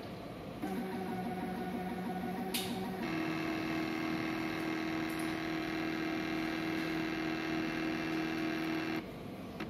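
Internal motor of a BS3000P photometer (semi-automatic biochemistry analyzer) running with a steady whine while it processes a sample. It starts about half a second in, changes to a louder, steadier tone about three seconds in, and cuts off suddenly near the end.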